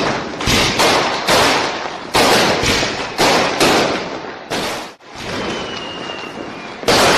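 Fireworks going off: a rapid, irregular series of loud bangs, each one trailing off, with a faint whistle falling in pitch about two-thirds of the way through.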